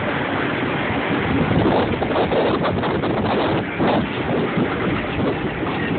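Street traffic, cars driving past, with wind buffeting the phone's microphone in irregular gusts.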